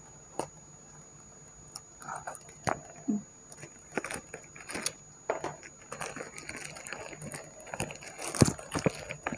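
Parcel being unwrapped by hand: packaging crinkling and rustling in short, irregular bursts with scattered clicks, busier and louder in the second half.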